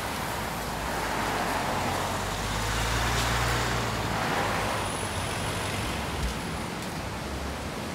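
A motor vehicle driving past, its low engine hum and tyre noise swelling to a peak about three seconds in and then fading, over a steady hiss.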